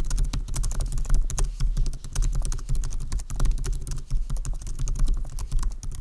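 Continuous fast typing on a 2012 MacBook Pro Retina's scissor-switch keyboard: a dense, unbroken patter of key clicks.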